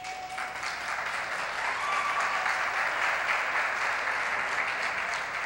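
Audience applauding, starting suddenly and building for a few seconds before easing off.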